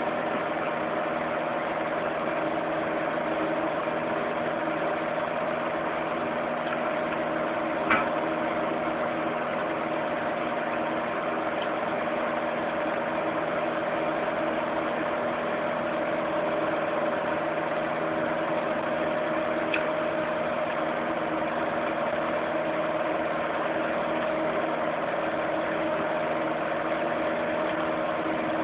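Element electric fan heater running: a steady motor hum with the rush of blown air, and one light click about eight seconds in.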